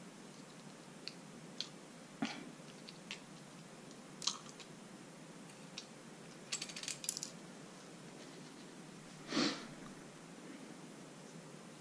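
Small metal parts clicking and clinking as they are handled over a concrete floor, with a quick run of metallic jingles about two-thirds of the way through and one louder short rustling thump near the end.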